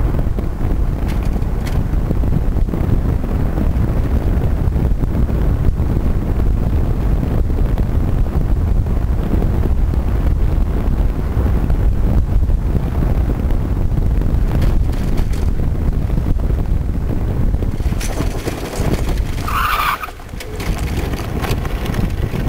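Wind rushing over the microphone and the small tyres of an engineless billy kart rumbling on tarmac as it rolls downhill. Near the end there is a brief high squeal as the kart slows and turns into a bend.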